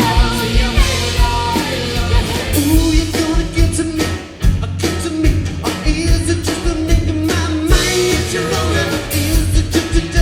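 Live rock band playing with a singer: a steady drum beat and bass under sung lines, with a long held vocal note through the second half. The music dips briefly just after four seconds in, then carries on.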